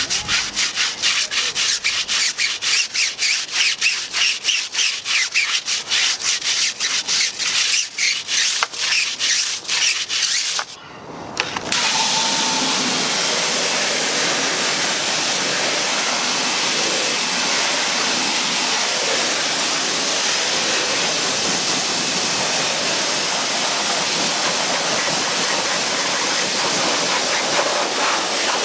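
A stiff-bristled brush scrubbing a soapy car tyre in quick repeated strokes. About eleven seconds in, after a short pause, a pressure-washer jet starts and hisses steadily as it rinses the wheel and tyre.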